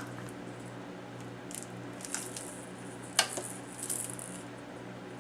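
Exersaucer toys being handled by a baby: a few scattered faint clicks and rattles, the sharpest a little after three seconds in, over a steady low hum.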